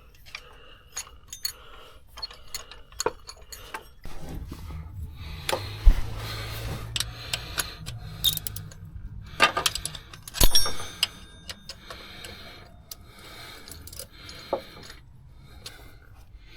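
Scattered metallic clinks, clicks and knocks of hand tools and engine parts being handled, with a low steady hum from about four to ten seconds in and one louder clank about ten seconds in.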